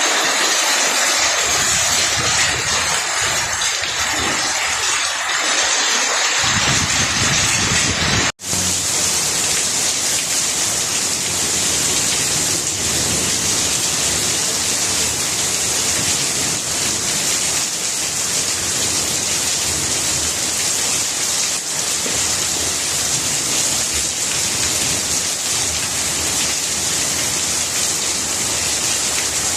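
Heavy rain falling on plant leaves, a dense steady hiss. About eight seconds in it cuts out for an instant, then resumes with a slightly different, even texture.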